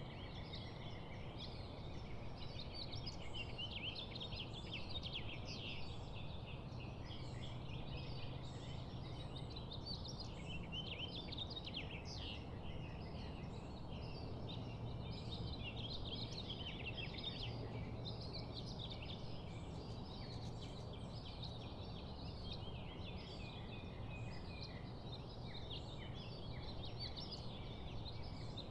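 Dense chorus of many birds calling and chattering at once, a continuous tangle of short overlapping calls, over a low steady background rumble.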